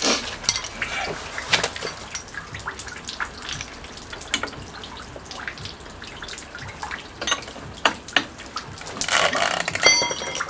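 Metal hand tools clicking and clinking against the scooter's variator as a holding tool and a wrench handle are fitted to undo the variator nut. A busier run of knocks near the end ends in a metallic clank that rings briefly.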